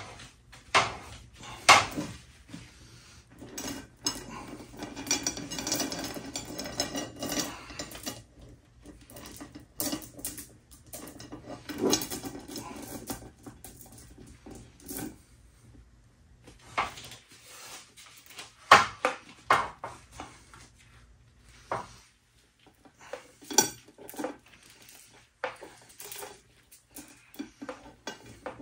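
Chainsaw chain clinking and rattling as it is handled and wound onto a spool: irregular metallic clatters, with a denser stretch of rattling early on and a few louder single clanks.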